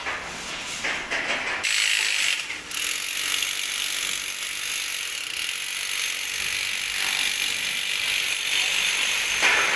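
Steady high-pitched mechanical rattling noise from a machine or tool, starting about two seconds in and running on evenly.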